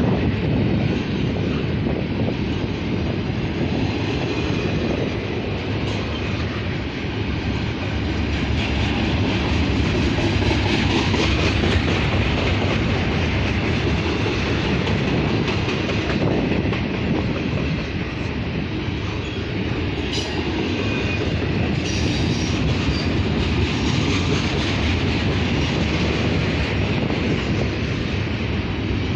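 Norfolk Southern freight train cars rolling past, a steady rumble with the clatter of wheels over the rails.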